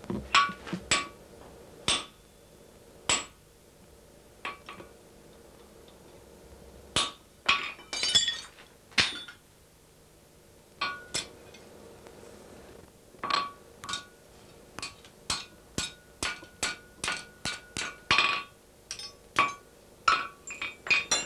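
Blacksmith's hand hammer striking hot iron on an anvil, each blow giving a short metallic ring. The blows come unevenly at first, then in a quicker run of about three a second in the second half.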